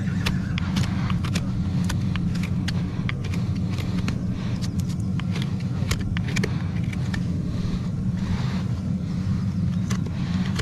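Gas forge burner running with a steady low rumble, with scattered sharp clicks and taps over it.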